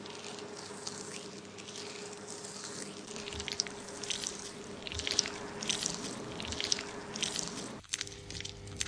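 Fingers scrubbing a shampoo-lathered scalp and hair: rhythmic, crisp scratchy strokes, roughly one every two-thirds of a second, growing more distinct a few seconds in.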